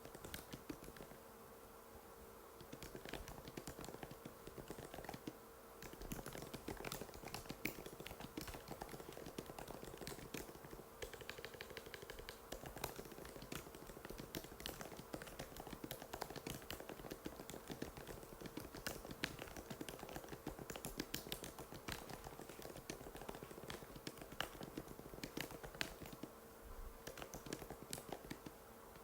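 Typing on an Apple MacBook butterfly keyboard: a fast, continuous run of light key clicks over a faint steady hum, with short pauses near the start and near the end.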